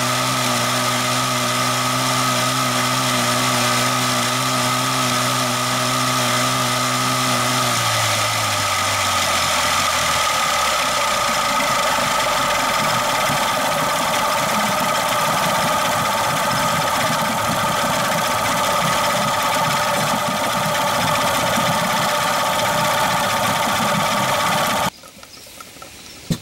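Yamaha/Mariner 6E9 40 HP two-stroke outboard running on a stand with the propeller churning water, during an ignition timing check. Its engine speed drops about a third of the way in, then it runs on steadily and cuts off abruptly near the end.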